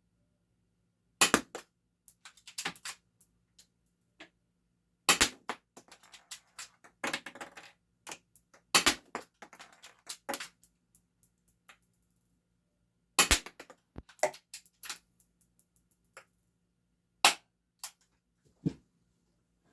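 A Game Face M311 full-metal spring-powered airsoft pistol firing five shots, each a sharp crack, about one every four seconds. Between the shots come smaller clicks and rasps as the stiff slide is cocked again.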